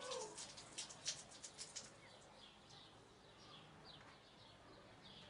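Faint bird chirps: short, high, falling chirps repeating every half second or so, after a couple of seconds of faint clicking.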